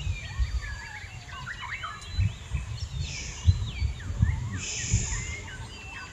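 Many birds chirping and whistling, their calls gliding up and down, over irregular low rumbling bumps and a few short stretches of high hiss.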